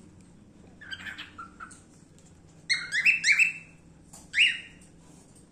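Pet cockatiel chirping: short, bright calls that come in bursts, a soft group about a second in, a louder run of three near the middle, and a single call near the end.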